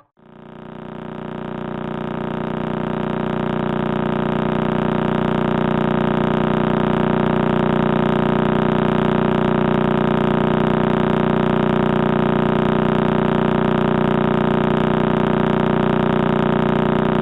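Pulsar radio signal played as sound: a steady, even buzz that swells in over the first few seconds.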